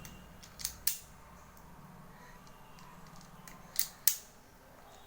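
Sharp mechanical clicks from a self-adjusting automatic wire stripper-cutter being worked: two pairs of clicks about three seconds apart, the second click of each pair the louder.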